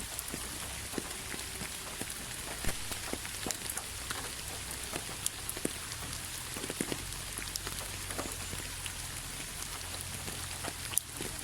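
Steady rainfall, with scattered individual drops ticking sharply on a surface over an even hiss.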